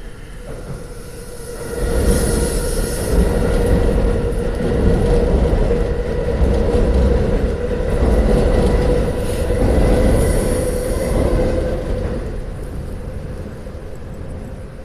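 Loud steady rumble of a large passing vehicle, with a few steady humming tones and a high hiss over it. It swells about two seconds in and fades away over the last few seconds.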